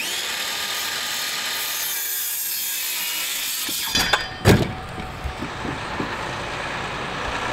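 Circular saw spinning up with a whine and cutting through a pine board for about four seconds, then running down. A sharp knock follows about half a second later.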